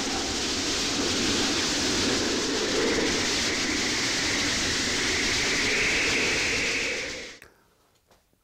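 Strong wind blowing steadily, a wide rushing noise with a slowly wavering higher whistle in it; it fades out about seven seconds in.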